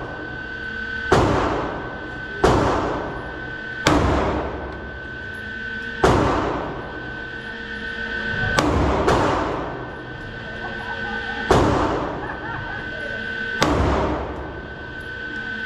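Smith & Wesson Equalizer 9mm pistol fired in slow, deliberate single shots, about eight reports spaced one to two and a half seconds apart. Each shot echoes off the hard walls of an indoor range, over a steady ventilation hum.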